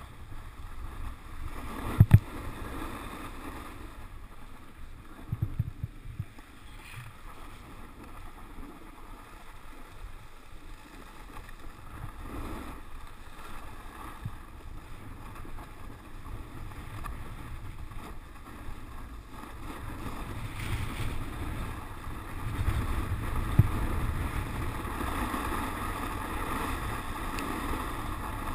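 Snowboard sliding and scraping over groomed, hard-packed snow, with wind rumbling on the microphone. A couple of sharp knocks come near the start, and the scraping and rumble grow louder over the last several seconds.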